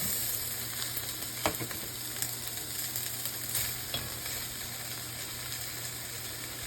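Chicken pieces sizzling steadily in hot olive oil in a Dutch oven with carrots and garlic, with a few light clicks.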